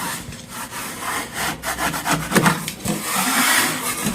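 Putty knife scraping over a coat of quick-set joint compound that has set but is not fully cured, shaving off the high spots. It makes several short scraping strokes, then a longer continuous scrape in the last second or so.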